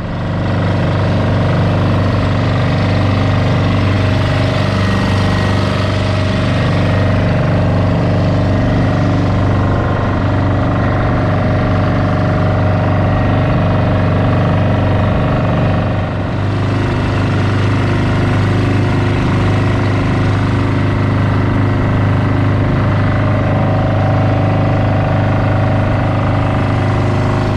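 Outrigger boat's (bangka) engine running steadily with the boat under way, its note dipping and shifting slightly a little past halfway.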